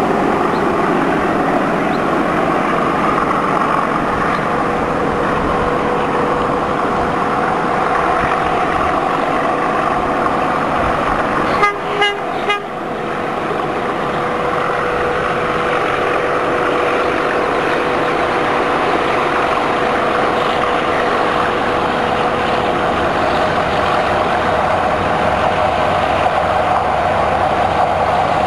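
A pair of Class 37 diesel locomotives, English Electric V12 engines, working hard under full power as they haul a freight train. The sound is loud and steady with a held tone, broken by three brief sharp sounds about twelve seconds in.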